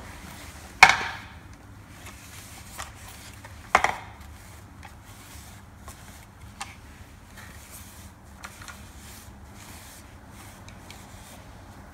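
Plastic headlight housing being handled and wiped out after drilling: two sharp knocks, about a second in and about four seconds in, with faint clicks and rubbing between.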